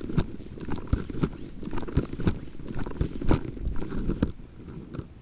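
Footsteps of a person walking on pavement, mixed with rustling and knocks from a handheld or body-worn camera rubbing against clothing, with irregular thumps about once or twice a second.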